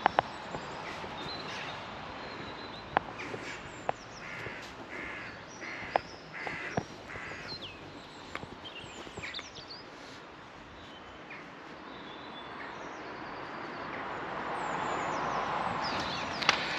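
A crow cawing: a run of about five harsh calls, about half a second apart, a few seconds in. Small birds chirp throughout, with a few sharp clicks.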